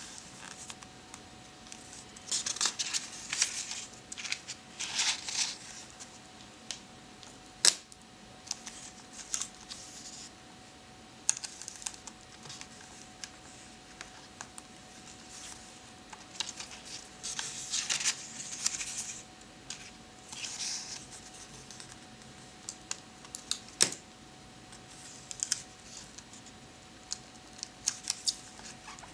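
Fingertips rubbing, tapping and scratching on paper as a printed photo is pressed and smoothed onto a notebook page, in irregular clusters of dry rustling. Two sharp clicks stand out, one about eight seconds in and one about two-thirds of the way through.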